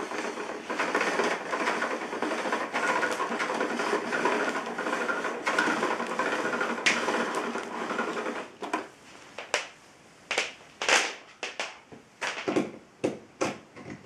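Power cord being pulled out of the cord reel of a Lux Intelligence canister vacuum cleaner, with the motor off: a dense rattling clatter for about eight seconds, then around ten short separate rattles as the cord is drawn out in tugs.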